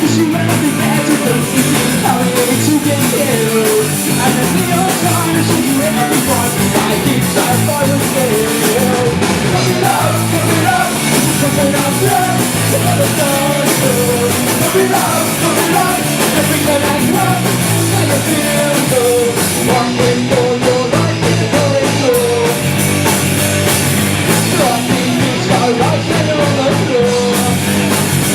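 Live rock band playing loud, continuous punk-leaning rock.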